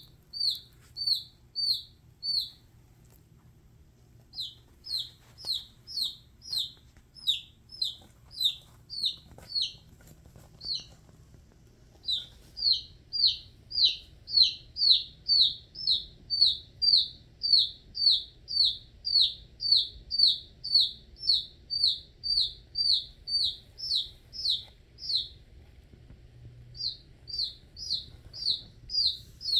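Domestic chick peeping: a steady run of short, high, falling peeps, about two a second, broken by a few brief pauses.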